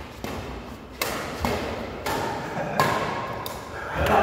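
Badminton rackets striking a shuttlecock in a rally: about six sharp hits, roughly one every half second to second, each trailing off in echo.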